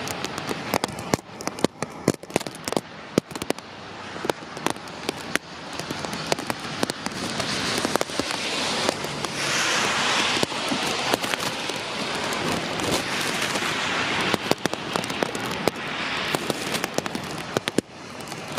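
Heavy rain, with drops landing close to the microphone as a dense run of irregular sharp taps over a steady rushing hiss. The hiss swells louder around the middle.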